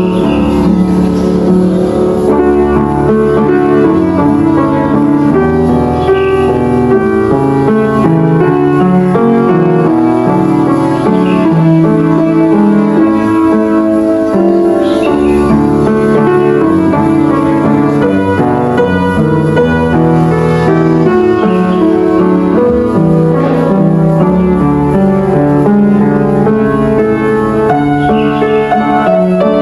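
Upright piano played continuously: a flowing piece of many notes over held bass notes.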